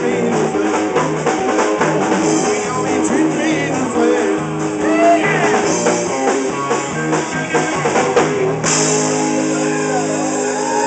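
Live rock band playing, with electric guitar, bass guitar and drum kit. Near the end the drumming stops and held guitar chords ring on.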